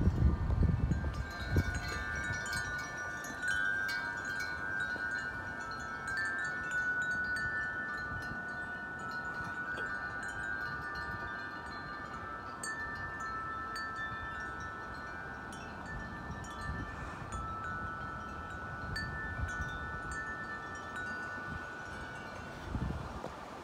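Wind chimes ringing steadily in strong wind, many tones overlapping and sustaining, with small clinks from the striker. Gusts rumble on the microphone, loudest in the first couple of seconds.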